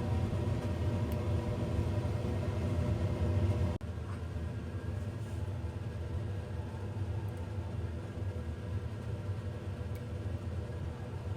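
Steady low mechanical hum with a few steady tones above it; it drops abruptly in level about four seconds in, then carries on more quietly.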